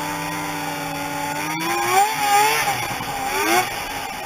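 Snowmobile engine running at a steady cruise, then revving up and easing off twice with the throttle from about two seconds in, its pitch rising and wavering.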